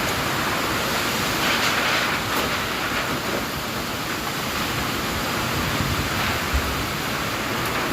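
Heavy typhoon rain and strong wind: a loud, steady rush of noise that swells in gusts, a couple of seconds in and again near the end. A single low thump about six and a half seconds in.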